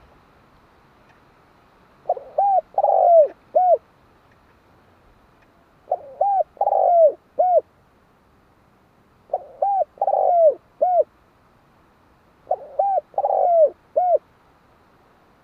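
Spotted dove cooing: four phrases of several short coos each, repeated every three to four seconds.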